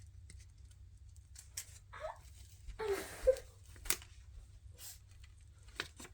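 Faint crinkling rustles and scattered small ticks: the paper backing being peeled off a Talon adhesive grip wrap, with the wrap handled against a Glock pistol frame.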